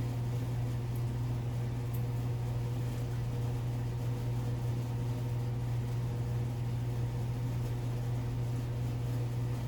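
Steady low electric motor hum, unchanging throughout, with a couple of faint ticks about one and two seconds in.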